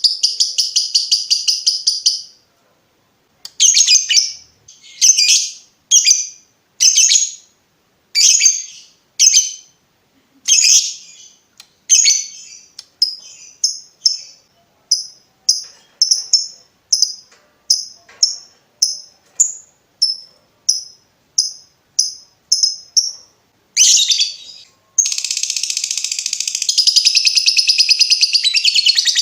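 Lovebird calling: a long, rapid chattering trill (the 'ngekek') that breaks off about two seconds in. Then comes a string of short, sharp chirps at roughly one a second, the 'ngetik' ticking, which grow shorter and a little quicker. About 25 seconds in, a continuous chattering trill takes up again.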